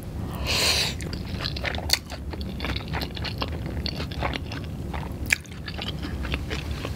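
A person eating curry pad thai noodles. About half a second in there is a short slurp as a mouthful goes in, then wet chewing with many small clicks.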